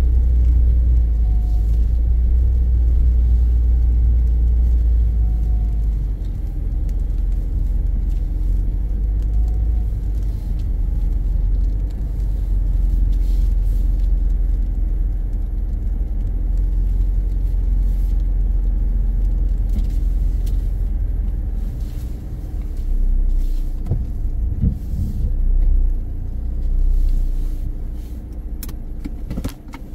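Low, steady engine and road rumble inside a car cabin as it drives slowly through a wet parking lot in rain. The rumble eases near the end as the car comes to a stop, with a few light ticks in the last seconds.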